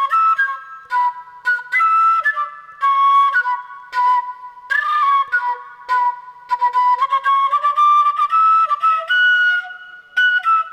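Background music: a solo melody of short and held notes stepping up and down, on a flute-like wind instrument.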